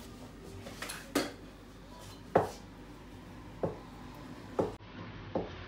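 Meat cleaver chopping braised pig head meat on a cutting board: about five sharp single chops, roughly a second apart.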